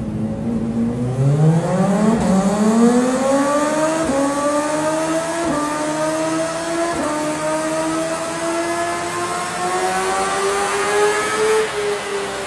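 CFMoto 500SR motorcycle engine and exhaust accelerating hard from low revs. The note climbs through several quick upshifts, each a short dip in pitch, then holds a slowly rising note before easing off near the end.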